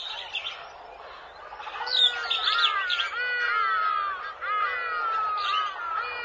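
Birds chirping: many quick, curved calls overlap in a rapid repeating stream, beginning about two seconds in.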